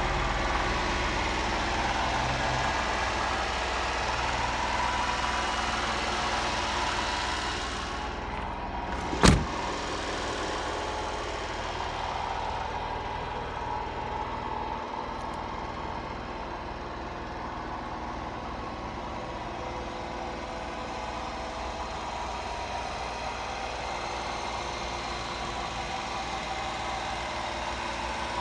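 Honda Acty kei truck's small engine idling steadily, with a single sharp thump about nine seconds in.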